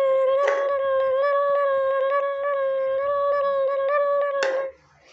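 A long, steady, high-pitched hum held on one note, with brief rustles about half a second in and again just before it cuts off sharply about four and a half seconds in.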